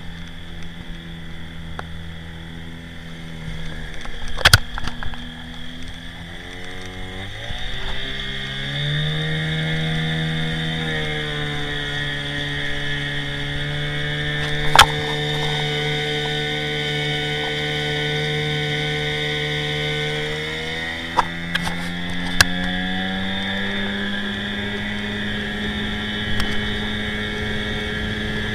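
Johnson Seahorse 15 hp outboard motor running on a small inflatable boat, its pitch climbing twice as it speeds up and otherwise holding steady. A few sharp knocks cut in, the loudest about halfway.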